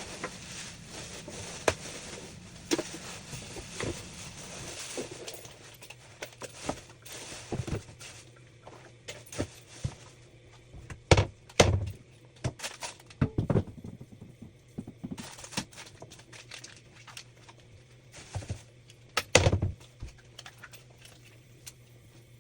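Irregular knocks, clunks and clicks from objects being handled, with louder thumps about 11 and 19 seconds in, in a small room.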